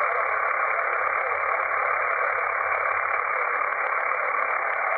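Steady band-noise hiss from an FX-4CR SDR HF transceiver receiving on 40 m lower sideband (7.168 MHz), with no station coming through. The hiss has no deep or high end, cut to a narrow voice band by the receiver's sideband filter.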